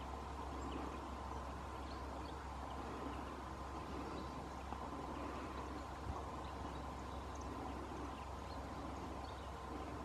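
Quiet outdoor ambience: a steady hiss and low hum, with faint, scattered high chirps of small birds calling at a distance.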